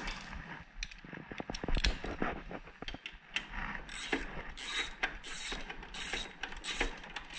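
Hand socket ratchet clicking as 12 mm bolts are run in on the mower's blade hub, first a few scattered clinks of metal, then from about halfway on steady back-and-forth ratcheting strokes about twice a second.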